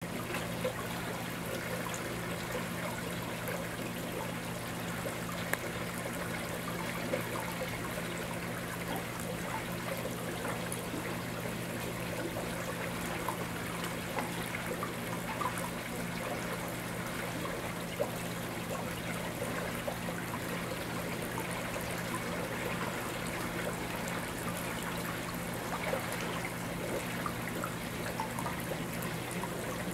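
Water in a koi pond trickling and splashing steadily where bubbles rise through the surface, with small drips and splashes scattered throughout. A steady low hum runs underneath.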